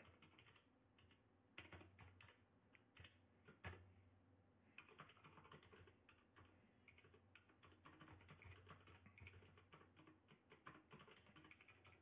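Faint typing on a computer keyboard: irregular clicking keystrokes with short pauses.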